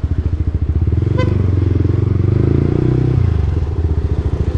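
Motorcycle engine running at close range in a rapid, even pulse. The revs swell for a couple of seconds and drop back about three seconds in. A brief beep sounds about a second in.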